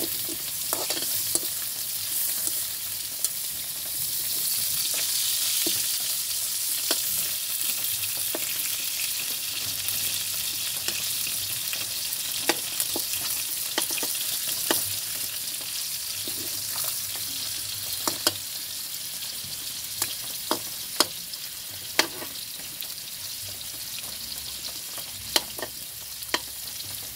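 Pork and chicken pieces sizzling as they brown in a metal wok, with scattered sharp clicks and scrapes of a metal spatula turning them against the pan, more frequent in the second half.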